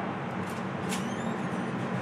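Steady hum and hiss of an indoor shooting range between revolver shots, with two faint clicks about half a second and a second in.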